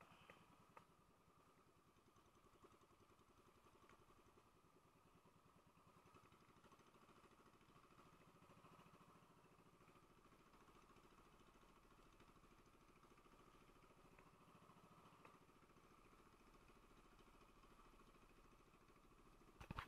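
Faint, steady engine hum, barely above silence, with a few small clicks near the start.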